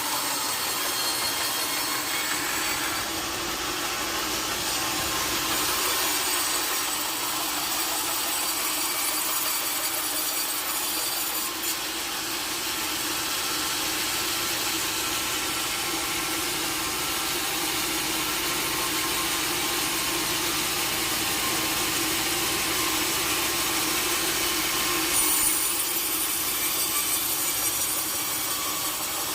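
Sawmill saw running steadily through a large log: a continuous, even cutting noise with a steady hum under a bright hiss, growing a little brighter near the end.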